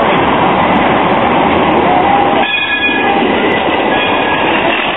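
Low-floor street trams, an Alstom Citadis and a Bombardier Flexity, running past close by on street track with a steady rolling rumble. A brief high-pitched tone sounds about halfway through.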